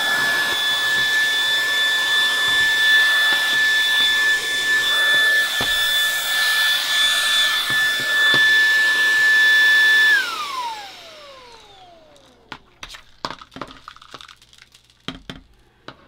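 VTOMAN ToolCore V22 cordless handheld vacuum running on turbo mode: a steady high whine over rushing air, with a few sharp clicks. About ten seconds in it is switched off and winds down, its whine falling away, followed by light taps and knocks.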